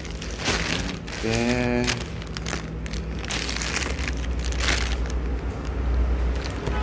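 Clear plastic bag rustling and crinkling as it is handled and opened, in uneven bursts. About a second in, a short wavering vocal sound is heard, and a low rumble runs underneath, stronger near the end.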